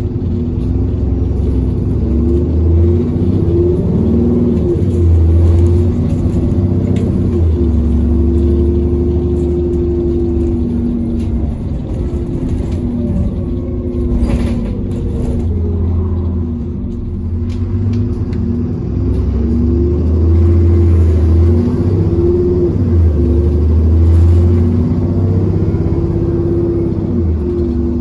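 ADL Enviro 400 double-decker bus's diesel engine, heard from inside the saloon, pulling away and accelerating through the gears of its ZF automatic gearbox. The engine note rises and drops several times as it changes up, with one sharp knock about halfway through.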